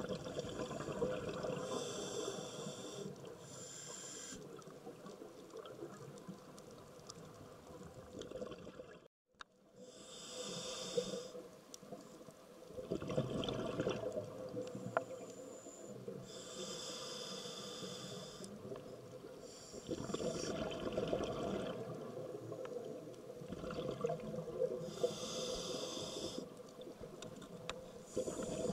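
Scuba diver's regulator heard underwater: slow breathing cycles, with a hissing inhale and a rush of exhaled bubbles returning every five or six seconds. The sound cuts out briefly once, about nine seconds in.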